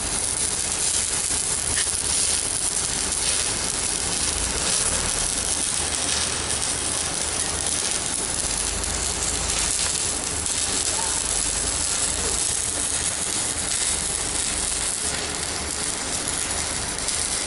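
Stick-welding arc burning steadily: a continuous crackling hiss as an electrode is run off a CNR 120 welding machine.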